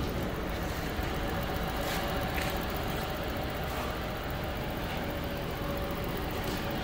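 Steady hum of an electric motor-driven fan running, with a faint steady whine over it, from the industrial oven's ABB blower motor. A couple of light clicks about two seconds in.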